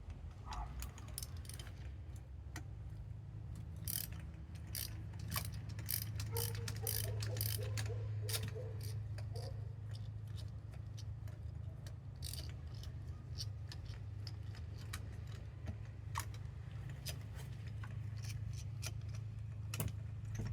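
Socket wrench ratchet clicking in irregular runs while a spark plug is loosened with a 14 mm deep socket on an extension, over a steady low hum.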